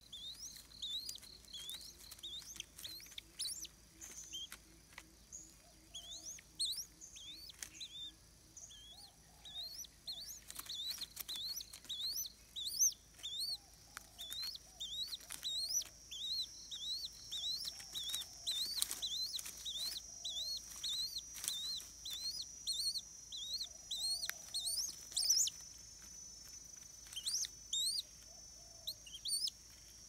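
Bird calls: a long run of short, high-pitched chirps, about two or three a second, with a steady high-pitched drone joining about halfway through.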